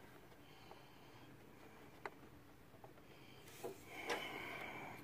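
Faint handling sounds of fingers working an oiled engine position sensor into its bore: a small click about two seconds in, then a brief rubbing scrape near the end as it seats.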